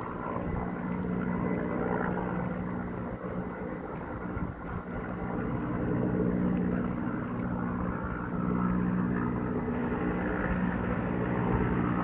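Firefighting helicopter flying with a water bucket slung below: a steady rotor and engine drone that grows somewhat louder about halfway through.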